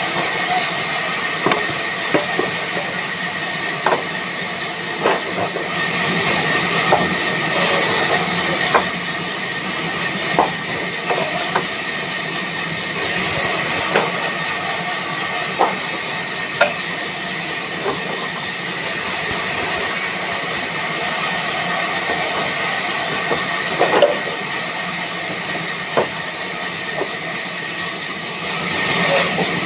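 Band sawmill running: a steady high whine over a hiss, with scattered knocks and clicks.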